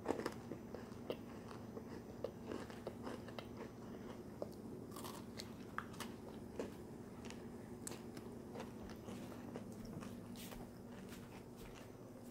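A person chewing a mouthful of nacho pasta with a crunchy chip, close to the microphone: faint, irregular crunching and small clicks, with a sharper bite right at the start.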